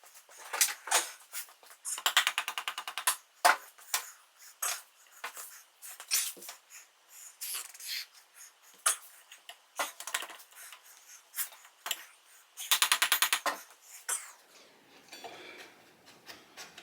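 Hand tools working on a motorcycle during reassembly: scattered metallic clicks and knocks, with two short runs of a ratchet wrench clicking rapidly, about two seconds in and again near the end.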